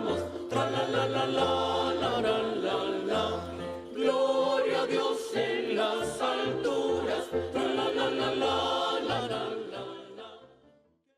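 Choir singing a Christmas carol over a low bass accompaniment, the music fading out near the end.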